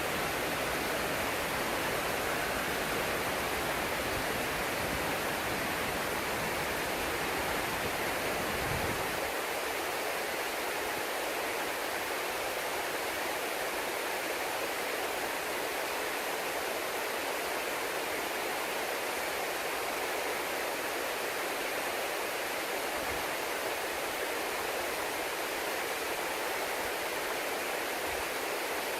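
Steady rushing of water falling at a partly frozen waterfall, with no change in level. A low rumble sits under it for the first nine seconds or so, then drops away.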